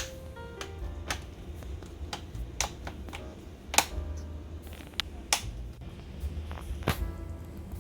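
About half a dozen sharp, scattered clicks of hard plastic or keys being handled, over soft background music.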